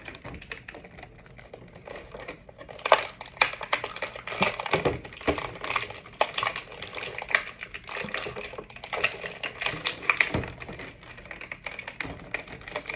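Stiff clear plastic toy packaging crackling and crinkling as a figure is worked out of it by hand, in irregular sharp crackles and clicks, the loudest about three seconds in.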